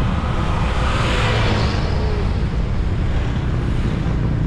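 Wind rushing over the camera microphone on a moving Honda ADV160 scooter, with its engine running underneath as a steady low drone. About a second in, an oncoming truck passes, bringing a swell of hiss from tyres on the wet road that fades within a second.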